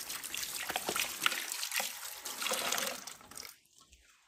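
Water trickling and splashing as hands rinse napa cabbage leaves in a metal basin of water, with small sharp splashes. It dies away about three seconds in and is nearly silent near the end.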